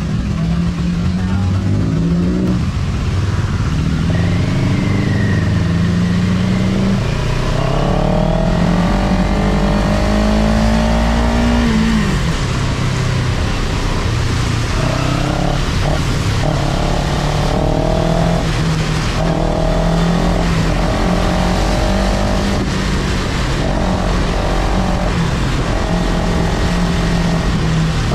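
CF Moto 700 CL-X Heritage's parallel-twin engine running under way, its revs climbing for a few seconds about a third of the way in and then dropping back, over a steady hiss of wind and tyres on the wet road.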